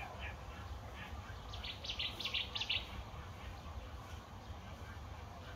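Outdoor garden ambience: a bird chirping in a quick run of short, high notes about two seconds in, over a steady low background rumble.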